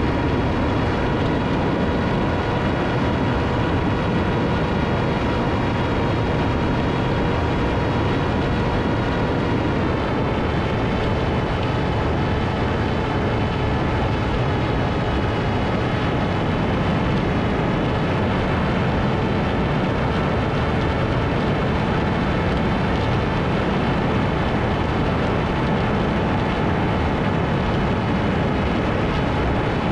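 Ritewing Hardcore 38 flying wing in flight: its electric motor and propeller give a steady whine over a constant rush of air. The whine's pitch drops a little about ten seconds in, as the throttle eases.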